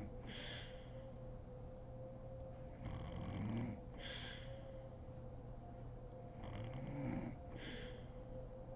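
A sleeping woman snoring. A low, rasping snore comes with each breath, followed by a short airy puff on the exhale, repeating about every four seconds.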